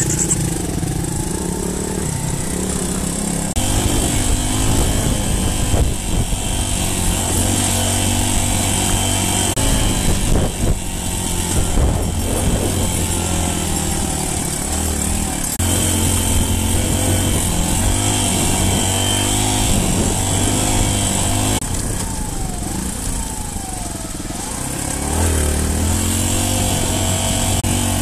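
Dirt bike engine heard from on board, pulling away and accelerating along a gravel track. The engine note steps up and down several times as the throttle and gears change.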